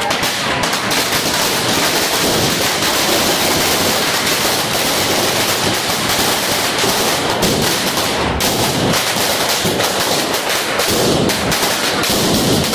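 Firecrackers packed inside a burning Ravan effigy going off in a rapid, continuous crackle of many loud bangs a second, with no break.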